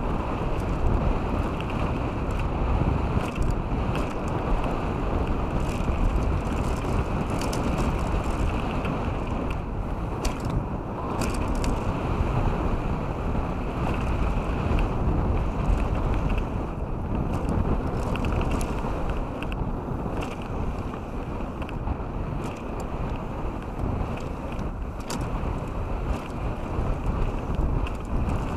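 Mountain bike riding fast down a gravel trail: wind buffeting the action camera's microphone over the steady rumble of the tyres on loose gravel, with scattered clicks and rattles from stones and the bike.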